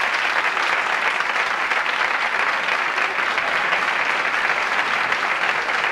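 Studio audience applauding steadily as guests are welcomed on.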